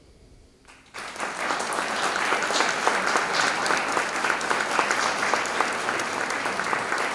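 Audience applauding: a brief hush, then clapping breaks out about a second in and holds steady.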